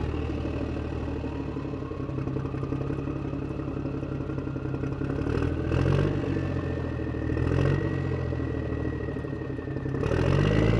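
Motorcycle engine running, with the revs swelling up a few times, around the middle and again near the end.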